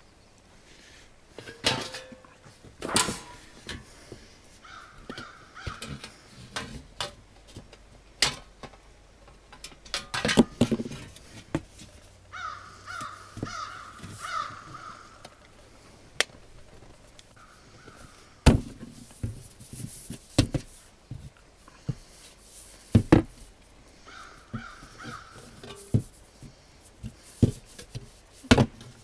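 Black sheet-metal stovepipe sections being handled and fitted together at the seam, giving scattered sharp metallic clicks and knocks. A crow caws in short runs of several calls in the background.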